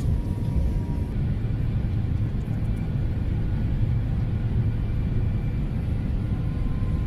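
Steady low rumble inside the cabin of an Airbus A350 airliner on final approach, engine and airflow noise heard through the fuselage with the landing gear down.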